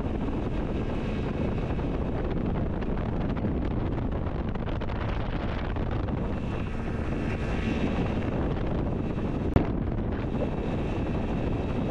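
Outboard speed boat running at speed, a steady engine drone mixed with heavy wind buffeting the microphone. One short sharp tap comes near the end.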